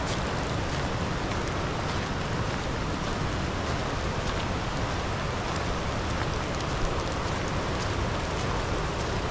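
Steady rushing of a fast, swollen river running in rapids: a dense, even wash of water noise.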